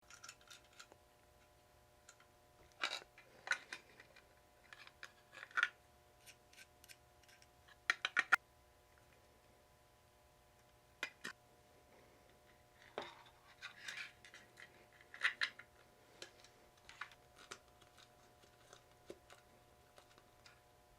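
Scattered small clicks, taps and scrapes of parts being handled as switches are fitted into a 12 V test box, over a faint steady hum.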